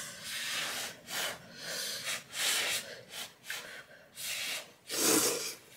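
Someone slurping hot tomato soup close to the microphone, in a string of short noisy sucks of air and liquid, about eight of them.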